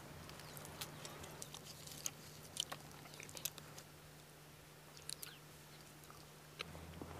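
Faint crinkling of chocolate foil wrappers and chewing as chocolates are unwrapped and eaten, heard as scattered small crackles and clicks over a steady low hum.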